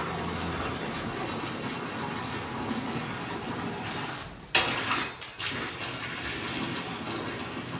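Cowshed ambience with tethered cattle feeding at hay: a steady rustling, water-like noise. About four and a half seconds in comes a sudden, louder rush of noise lasting under a second.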